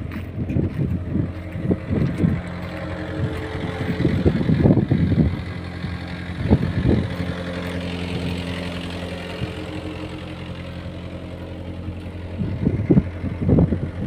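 A Cat 216 skid steer loader's diesel engine idling steadily, with irregular gusty bursts of noise over it.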